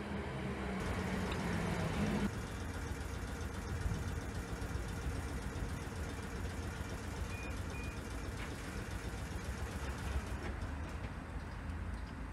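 South Western Railway Class 455 electric multiple unit drawing into the platform, then standing with a steady low hum and rumble from its equipment. The louder approach noise ends abruptly about two seconds in; two short high beeps sound about seven seconds in.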